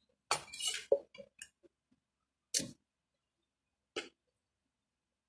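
Mouth and drinking sounds from sipping a soft drink through a straw from a glass bottle: a breathy exhale about half a second in, a few light clicks just after, and short sips near the middle and about four seconds in.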